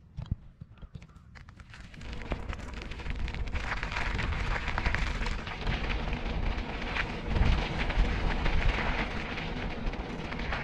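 Bicycle tyres rolling over a dirt-and-gravel track, a continuous crackling crunch over a low rumble, starting about two seconds in.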